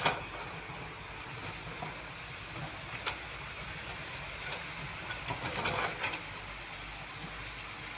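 Tata Hitachi excavator running steadily, with a sharp clank at the start, another about three seconds in, and a run of rattling clanks between about five and six seconds.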